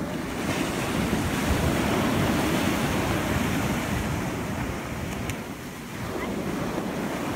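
Ocean surf breaking and washing up the sand, a steady rush that swells louder a second or two in and dips briefly about six seconds in.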